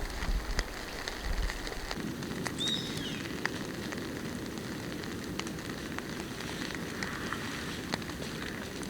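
Steady rain falling in the forest, with scattered sharp drip ticks and a low rumble in the first couple of seconds. A short high chirp is heard about a third of the way in.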